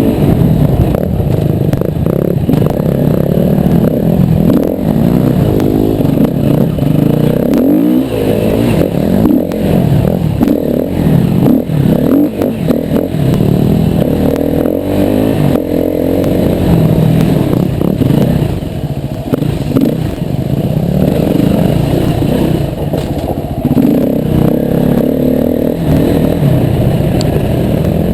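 Yamaha WR250R's single-cylinder four-stroke engine being ridden off-road, its pitch rising and falling over and over as the throttle is opened and closed.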